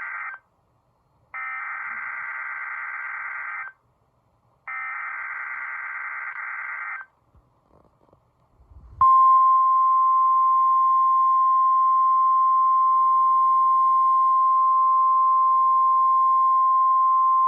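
National Weather Service Emergency Alert System activation for a severe thunderstorm watch. The end of one SAME header data burst is followed by two more digital data bursts of about two seconds each. After a short pause, the steady 1050 Hz warning alarm tone starts about nine seconds in and holds.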